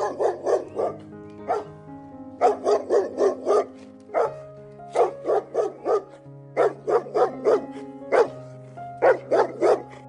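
A dog barking in quick runs of three to five barks, with single barks between, over background music of sustained keyboard notes.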